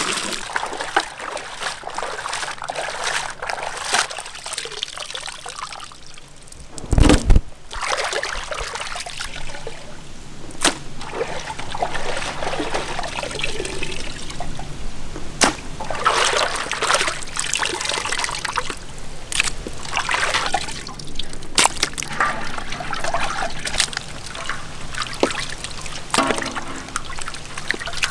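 Chunks of raw stingray meat being washed by hand in a pot of water: water sloshing, splashing and dripping as the pieces are stirred and lifted out onto a metal plate, with irregular small splashes and clicks. A single loud thump about seven seconds in.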